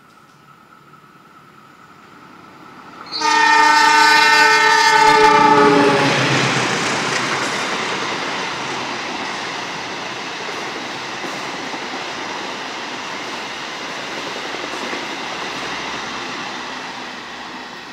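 Argo Parahyangan passenger train passing at speed. Its locomotive horn sounds one long multi-tone blast of about three seconds, the pitch sagging slightly at the end as it goes by. The coaches follow with a loud rushing rumble of wheels on rails that fades slowly.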